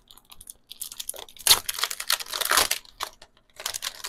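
Clear plastic packaging crinkling and rustling on and off as hands handle it.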